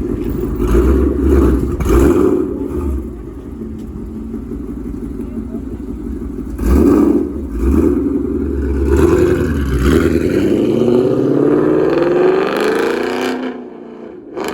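Car engine with a loud exhaust, revved hard several times, then pulling away with its pitch rising steadily before it drops off sharply near the end. The car is throwing a misfire code for cylinder 8.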